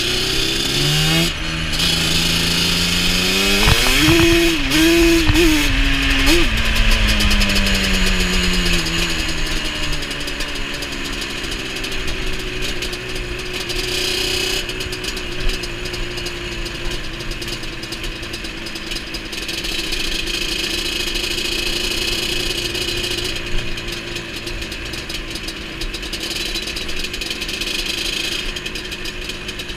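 Yamaha Banshee 350's twin-cylinder two-stroke engine with Pro Circuit pipes, revving up hard over the first few seconds and holding high. It then falls away as the throttle comes off, and runs steadily at lower revs for the rest of the ride.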